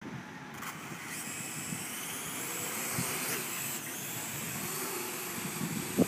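Small quadcopter drone's electric rotors whirring as it takes off and hovers: a steady buzz with high whining tones that shift in pitch. A brief thump near the end.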